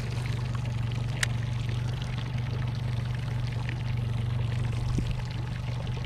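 Boat motor humming steadily at low speed, with water lapping and trickling against the hull. A single sharp click sounds about a second in.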